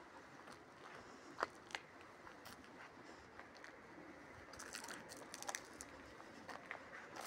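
Faint crunching footsteps on gritty asphalt with scattered sharp clicks, two louder ones about a second and a half in and a cluster of light clicking around five seconds in.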